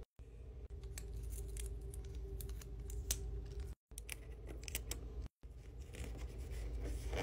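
Scissors snipping paper in a series of crisp, separate cuts, along with paper and tape being handled. The sound drops out abruptly a few times where short clips are joined.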